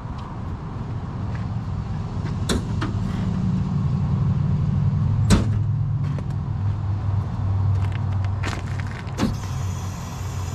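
A motor vehicle engine running steadily, swelling for a few seconds and then easing off, with a few sharp clicks or taps over it.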